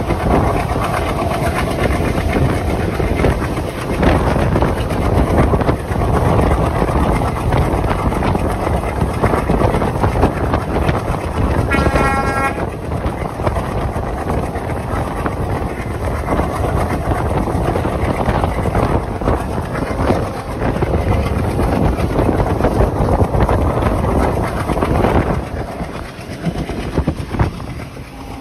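Passenger train running along the line, heard from an open coach window: a steady rumble of wheels on the rails with some clatter and rushing air. About twelve seconds in, the locomotive sounds one short horn blast.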